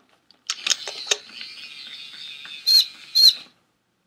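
Electronic chirping from a FurReal Friends newborn plush toy: a thin, high-pitched sound with a few clicks, then two loud short chirps close together, cutting off suddenly after about three seconds.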